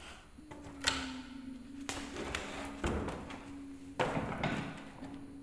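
A series of thumps, knocks and scuffing as a person clambers with difficulty through a tight opening, with a steady low hum underneath.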